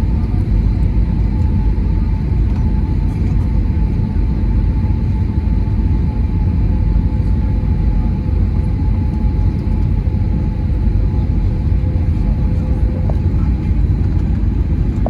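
Steady low rumble of an Airbus A320neo's engines and airflow heard inside the passenger cabin, with a faint steady whine above it.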